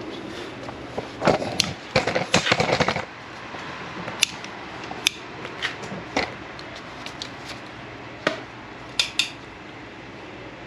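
Light metal clinks and rattles of a brake caliper spring clip being handled and tried against the caliper. A dense clatter comes about a second in, followed by scattered single clicks.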